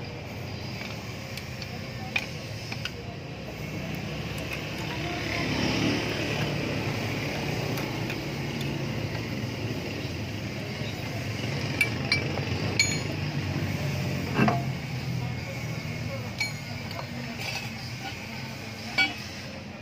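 Scattered metallic clicks and clinks of a socket wrench and steel wheel lug nuts as the nuts are loosened and taken off. One heavier knock comes about two-thirds of the way through, over steady background noise.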